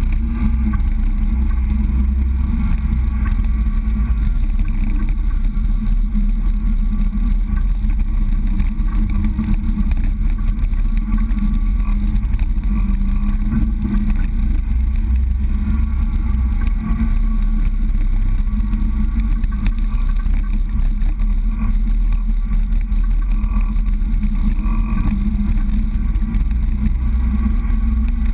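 A steady, unchanging low drone of a running motor.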